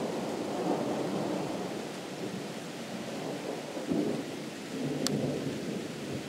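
Distant thunder rolling in a continuous low rumble that swells again about four seconds in, with one sharp tick about five seconds in.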